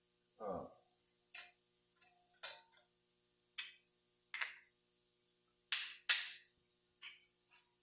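Small metal transmission parts clicking and clinking as they are handled and set down on the bench: about nine sharp, irregularly spaced clicks.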